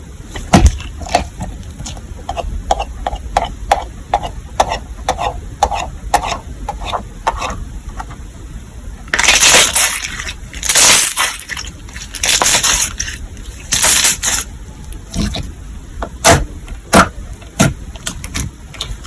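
Gummy slime being squished and poked by hand: a run of small sharp clicks and pops, then four louder, longer squishes, then a few more pops.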